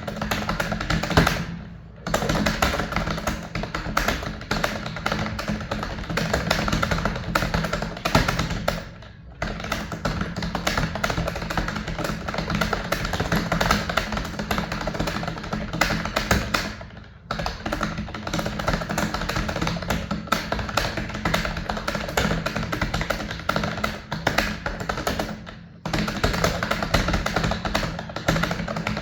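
Background music with a dense, steady percussive tapping, dropping out briefly about every eight seconds.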